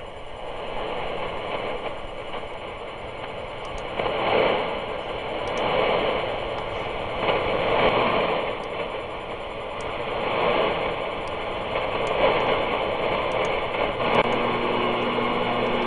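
Shortwave radio receiver hiss and static on an AM signal, rising and falling in slow waves as the signal fades. Near the end a steady low tone comes in.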